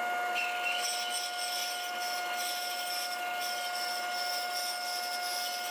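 Band saw running and cutting through a laminated multi-layer board fed on a sled: a steady whine with an even hiss of sawing.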